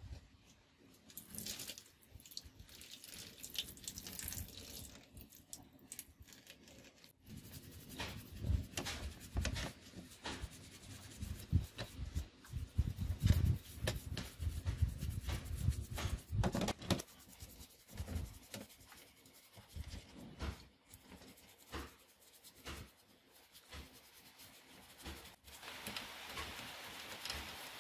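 Toothbrush scrubbing a rusty metal model car body in soapy water in a metal tin tray: irregular wet brushing and splashing, with heavier knocks of the parts against the tin in the middle stretch and steadier brushing near the end.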